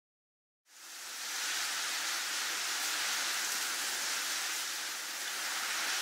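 A steady rushing hiss of even noise, with no tones or strikes, fading in from silence about a second in and then holding level: a produced sound effect under the closing card.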